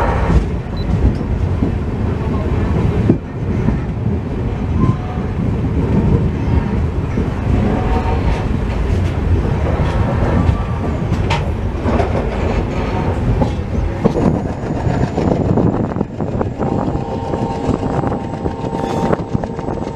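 Passenger train coaches running along the track: a steady rumble of wheels on rails, with occasional clicks and knocks. In the last few seconds a steady tone joins in.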